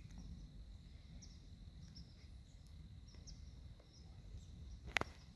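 Quiet open-field ambience: a low wind rumble with a few faint, short bird chirps, and one sharp click about five seconds in.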